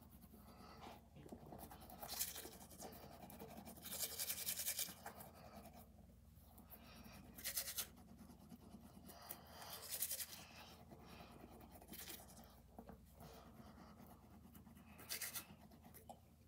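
Manual toothbrush scrubbing teeth in irregular spells of scratchy bristle noise, strongest about four seconds in and again around the middle and near the end.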